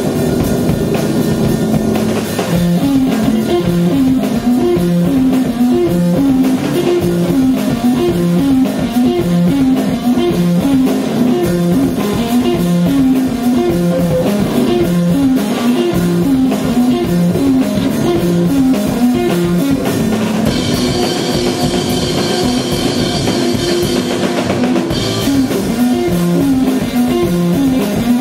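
Live rock band playing: electric guitar chugging a fast repeating riff over a drum kit and bass guitar. About twenty seconds in the riff gives way to held chords with ringing cymbals for a few seconds, then comes back.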